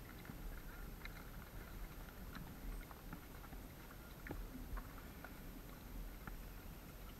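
Faint, scattered clicks and taps of a horse and its tack moving slowly, over a low rumble.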